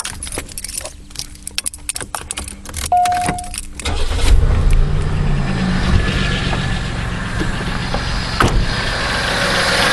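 Keys rattling and clicking, and a short beep, then about four seconds in the 1992 Buick LeSabre's 3.8-litre Series I V6 starts and runs with a roar through its new cold air intake.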